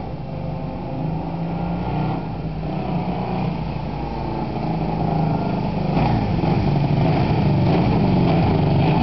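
Honda CB400 motorcycle engine running, growing steadily louder.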